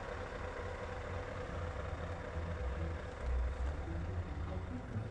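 Heavy truck diesel engine idling, a steady deep rumble that swells briefly about three seconds in, most likely the Scania V8.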